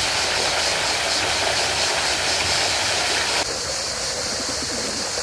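A fountain splashing into a pond, a steady rush of water, with cicadas buzzing high above it. A little over three seconds in, the water sound drops away and the cicadas' buzz goes on.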